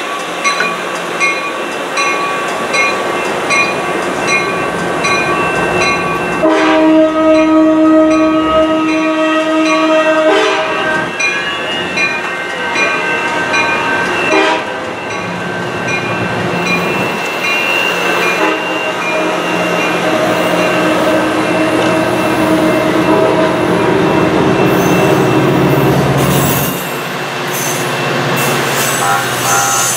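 Amtrak Pacific Surfliner train rolling slowly past on its bilevel cars, with steady wheel-and-rail noise. A bell dings about twice a second at the start, and a single long train horn blast of about four seconds sounds a little after that.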